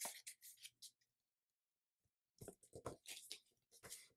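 Faint rustling and crinkling of a sheet of printer paper being opened and creased flat by hand: a run of short scratchy rustles, a pause of about a second and a half, then more rustling from about two and a half seconds in.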